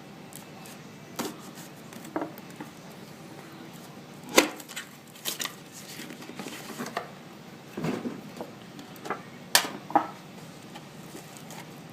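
Scattered knocks, clicks and rustles of trading-card packaging being handled: a card tin and its cards being moved and opened on a table. The sharpest knocks come about four seconds in and again about nine and a half seconds in.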